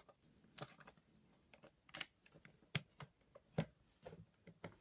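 Plastic Rubik's cube pieces clicking and tapping as they are worked into place in a cube being reassembled: a few sharp, irregular clicks.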